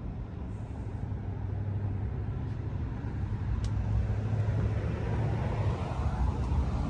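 Low, steady rumble of a motor vehicle's engine, growing louder through the second half as it draws near.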